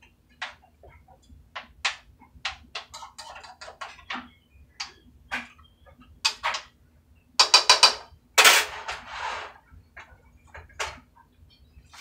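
Cooking utensil clinking and scraping against a skillet as rice and vegetables are stirred, in irregular sharp clicks. About seven and a half seconds in comes a quick run of five loud knocks, then about a second of scraping.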